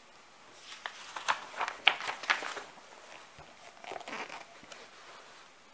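Handling noise from a picture book being held and moved: a run of light rustles and clicks, loudest about two seconds in, and a few more around four seconds.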